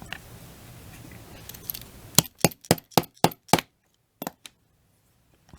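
Small hammer tapping a steel punch to drive a small pin into the action of a Marlin Model 57 lever-action .22 rifle: six quick sharp metallic taps about two seconds in, then two more.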